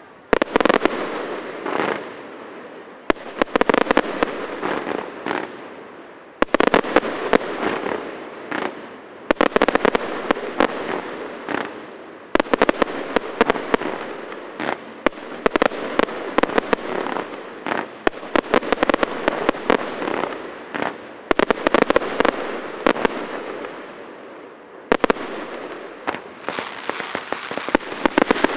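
Fireworks display: volleys of shell bursts and rapid crackling, a new volley every three seconds or so, each fading out over a second or two before the next.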